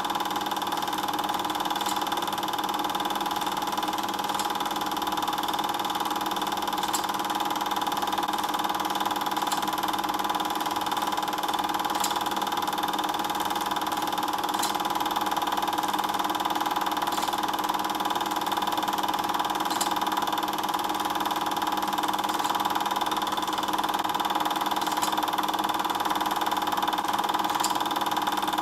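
Steady mechanical whirr of a Super 8 film projector's motor running, with a faint tick about every two and a half seconds.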